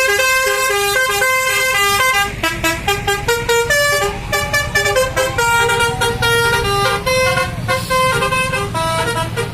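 Bus 'telolet' multi-tone musical horn (Basuri type) playing a tune of stepped notes. About two seconds in, the notes turn short and rapid, over a low rumble.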